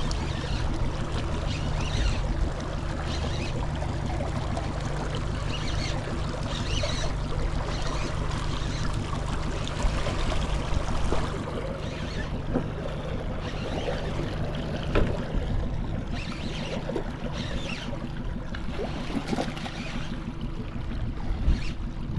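A small boat's motor running steadily at low speed, with water rushing and splashing along the hull.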